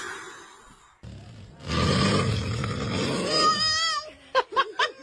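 A man snoring loudly: one long rasping snore starting a bit under two seconds in, ending in a wavering whistle-like tone, then a few short high-pitched squeaks near the end.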